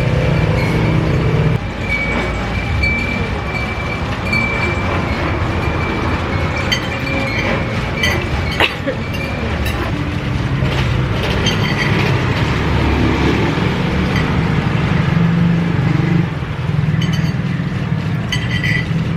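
Busy background noise of traffic with faint voices and a few clinks.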